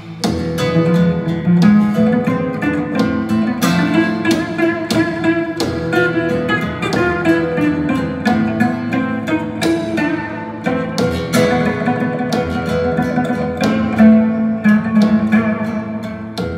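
Plucked guitar music with a dense run of picked notes, played back through a pair of SABA Green Cone full-range speakers in Bongo cabinets, driven by a 300B single-ended tube amplifier.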